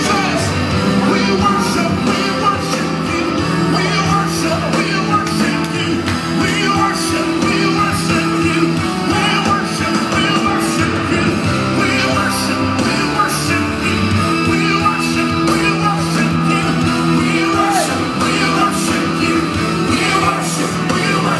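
Worship music with singing: held chords over a steady drum beat.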